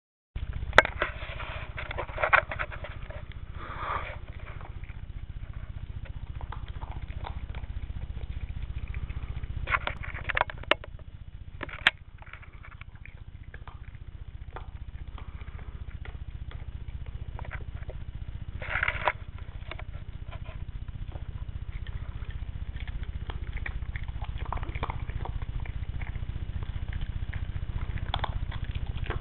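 A Bichon Frise eating dry kibble from a bowl: irregular crunching and clicking that comes in bunches, with quieter stretches between. A steady low hum runs underneath.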